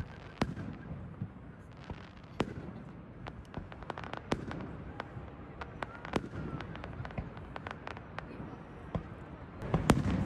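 Fireworks going off: irregular sharp cracks and pops, some in quick succession, over a steady low rumble, growing louder and busier near the end.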